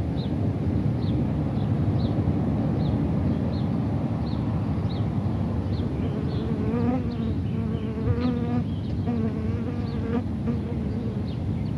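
A flying insect buzzing close to the microphone for about four seconds from just past the middle, its pitch wavering. Underneath is a steady low rumble, and a short high chirp repeats about twice a second.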